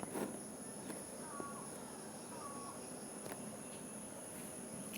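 Quiet room tone: a faint steady hiss with a thin high-pitched whine, a few soft clicks, and two short faint chirps about a second and two and a half seconds in.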